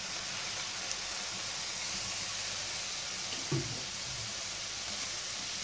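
Stir-fried noodles and vegetables sizzling steadily in an aluminium pot over a high gas flame, just after soy sauce has been poured in.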